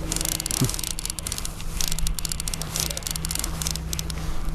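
Fishing reel clicking rapidly in bursts of a second or two while a hooked fish is fought on a trolling rod, over the steady low hum of the boat's outboard motor running at trolling speed.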